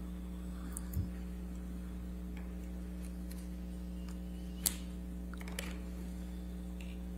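Quiet courtroom room tone: a steady electrical hum, with a few faint clicks and light knocks, the sharpest a little under five seconds in.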